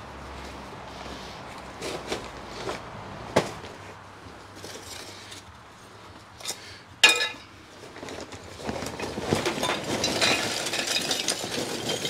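The opened paper bag of lump hardwood charcoal is handled with scattered rustles and knocks and one sharp crack about seven seconds in. From about nine seconds in, lump charcoal pours from the bag and clatters into a metal wire charcoal basket.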